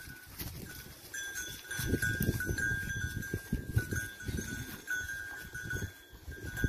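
A flock of sheep grazing and moving, with a bell among them ringing on and off in a thin, high tinkle over low rustling and thumps on the ground.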